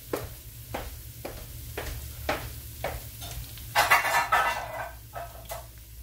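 Salmon patties frying in hot oil in a stainless steel skillet, sizzling with sharp pops about twice a second. About four seconds in, a louder rattling burst lasts under a second.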